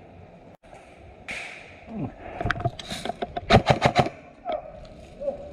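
Airsoft gun firing: scattered shots from about two seconds in, then a rapid burst of about half a dozen sharp cracks a little before four seconds in.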